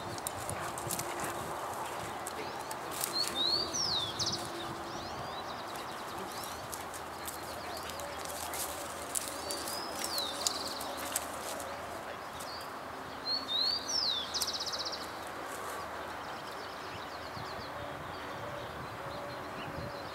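A songbird repeating the same short song phrase several times: a quick sliding whistle that runs into a fast, even trill. Under it lies a steady hiss of open-field ambience.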